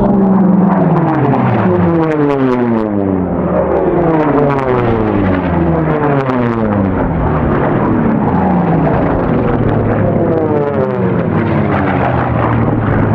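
Piston-engined Unlimited-class racing warbirds passing at high speed one after another, each engine's drone falling in pitch as it goes by. The loud, overlapping engine noise keeps going between passes.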